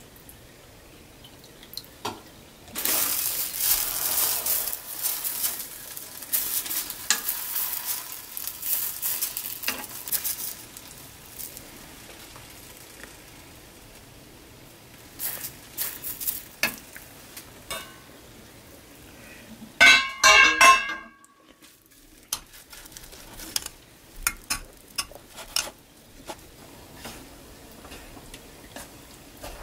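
Pork back ribs in sauce sizzling in a small saucepan for several seconds while a metal spoon stirs and scrapes the pan. About twenty seconds in comes a loud ringing metallic clatter, followed by light taps and clicks of chopsticks turning the meat.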